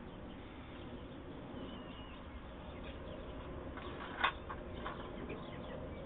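Hens pecking custard from a ceramic bowl: one sharp tap of a beak on the bowl a little over four seconds in, followed by a couple of lighter taps, over faint chirps and a low steady background.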